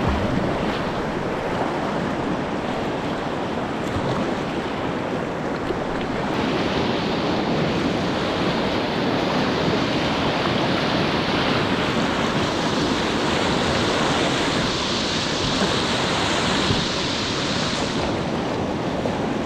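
River water rushing steadily over a shallow rapid, with some wind on the microphone. The hiss grows brighter about six seconds in and eases near the end.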